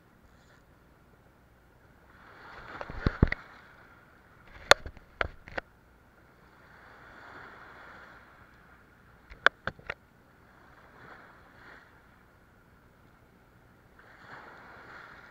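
Small waves washing against shore rocks, swelling every few seconds. Groups of sharp clicks and knocks come about 3 seconds in, around 5 seconds and near 10 seconds, and are the loudest sounds.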